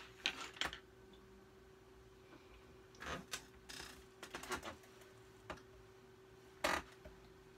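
Small makeup items and plastic being handled and set down on a desk: scattered clicks and knocks in short clusters, the loudest a sharp knock near the end, over a faint steady hum.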